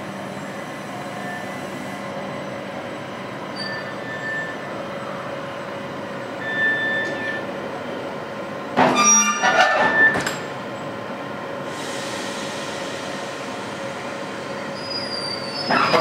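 RhB Allegra ABe 8/12 electric railcar easing up to the freight wagons, its equipment giving a steady hum with a few held tones. About nine seconds in comes a short burst of metallic clanking and squealing, and another comes at the very end.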